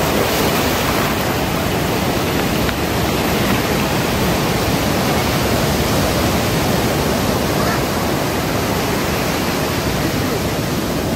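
Ocean surf breaking and washing up a beach: a steady, unbroken rush of noise.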